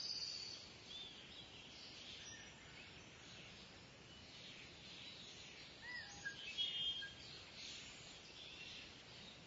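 Birds chirping and calling faintly over a steady background hiss, with a louder cluster of calls about six to seven seconds in.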